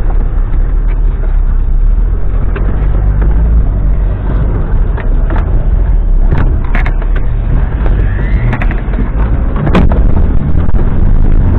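Off-road vehicle's engine rumbling loudly from inside the cab as it drives over a rough dirt track, with sharp knocks and rattles from the body jolting over bumps.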